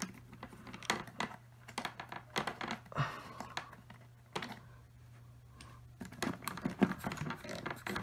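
Irregular plastic clicks and taps from hands and a screwdriver working on a Hoover WindTunnel upright vacuum's plastic housing, over a faint steady low hum.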